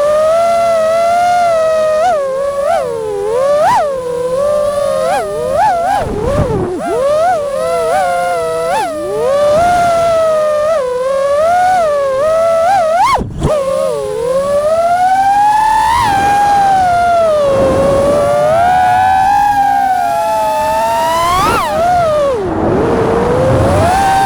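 FPV quadcopter's brushless motors and propellers whining, the pitch rising and falling with the throttle: quick punches through the first part, a brief cut of the throttle about halfway, then long smooth swells.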